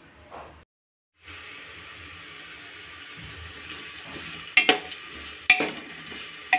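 Chopped onion, green chillies and cumin sizzling in hot oil in a pressure cooker, starting after a brief silent gap about a second in. A steel spoon stirring them clinks against the pot a few times in the second half.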